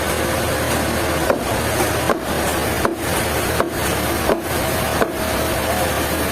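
Sawmill machinery running steadily, with six sharp wooden knocks at an even pace, about three-quarters of a second apart, starting about a second in.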